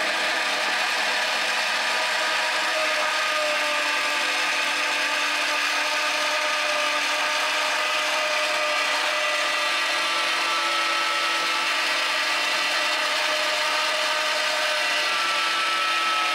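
Electric meat grinder running steadily with a whining hum while grinding chunks of raw venison, its pitch shifting slightly as meat feeds through the auger.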